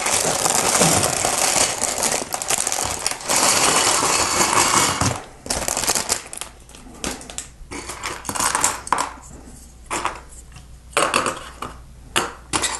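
Plastic bag of Lego pieces crinkling as it is opened and handled. About five seconds in, this gives way to loose plastic Lego bricks clattering out onto a table in scattered clicks.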